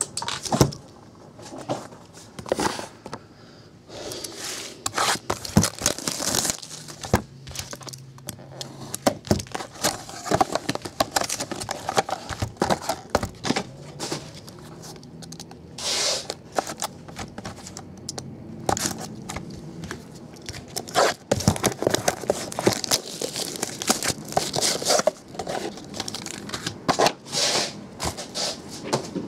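Plastic shrink-wrap being cut and torn off a sealed 2011-12 Fleer Retro basketball trading-card box, with crinkling plastic and many irregular short rustles and snaps as the box is opened and its card packs are handled.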